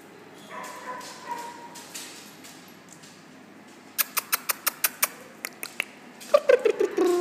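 Dogs at play: a faint whine about half a second in, a quick run of short, sharp yaps about four seconds in, then louder barks falling in pitch near the end.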